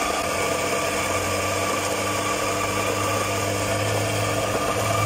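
Electric coffee grinder motor running with a steady hum.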